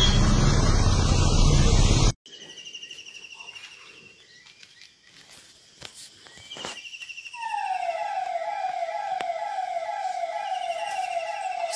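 Vehicle road noise with a voice for the first two seconds, cut off abruptly. Then faint high chirps, and from about seven seconds a siren-like falling tone repeating about twice a second.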